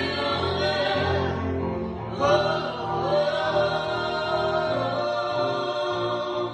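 Music with several voices singing long held notes over a sustained accompaniment.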